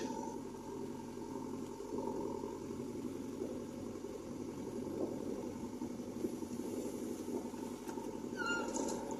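JCB 3DX backhoe loader's diesel engine running steadily, with a short high squeak near the end.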